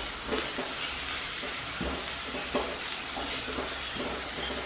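Chopped garlic sizzling in a little hot oil in a non-stick kadhai, with light scrapes of a silicone spatula stirring it.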